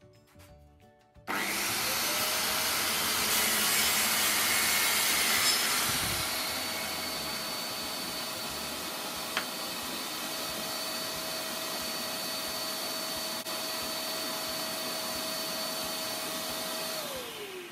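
A track saw and its dust-extraction vacuum switch on about a second in. The saw cuts through a fibreboard (MDF) panel for about four seconds, then the motors run on steadily. Near the end they wind down with a falling pitch.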